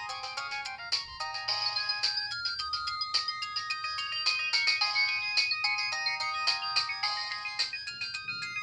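LG TM125 (LX125) mobile phone playing one of its built-in ringtones. It is a synthesized melody of short stepping notes, several sounding at once, over a regular drum beat.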